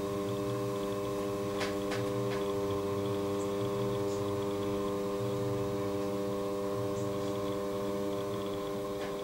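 Electric potter's wheel running with a steady, even motor hum, with a few faint clicks about two seconds in.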